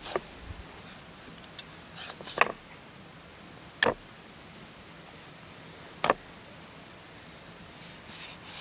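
A few sharp clicks or taps, spaced a second or two apart, over a quiet outdoor background, with some faint, very short high chirps.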